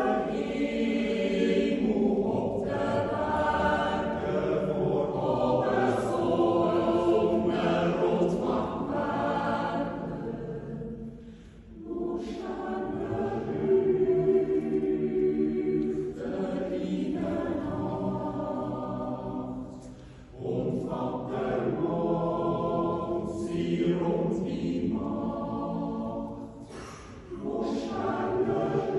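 Swiss yodel choir of men's and women's voices singing a Jodellied a cappella: full chords held in long phrases, with short breaks between phrases about 11, 20 and 27 seconds in.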